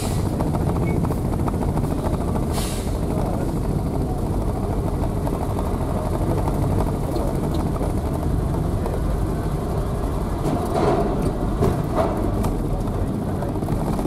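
Steady low rumble of a car driving slowly up a steel ferry loading ramp and onto the vehicle deck, with a couple of short knocks near the end.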